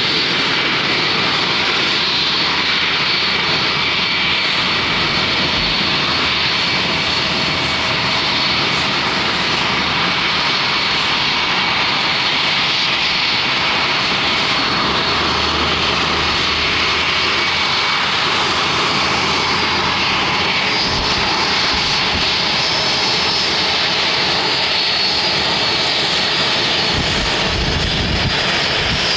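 Jet airliner engines running loud and close: a steady rush of engine noise with a high, even whine on top, holding level throughout.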